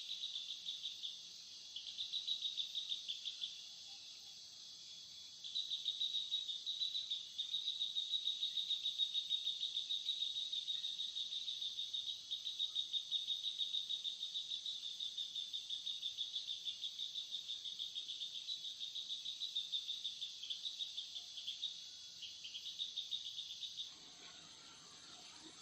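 Insect calling in a fast, pulsing, high-pitched trill, with short breaks about a second in and around four to five seconds in, stopping shortly before the end.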